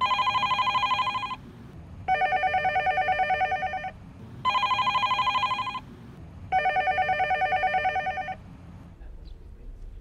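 Push-button desk telephone ringing: four rings of roughly one and a half seconds each, with short gaps between them. The rings alternate between a higher and a lower pitch, and each one has a fast trill.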